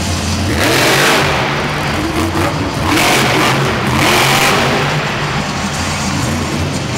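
Monster truck engine revving hard in surges: one about half a second in, then two more around three and four seconds in as the truck pulls a wheelie and jumps.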